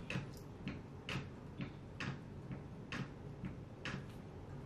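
Steady clock ticking, about two ticks a second, alternating stronger and weaker like a tick-tock.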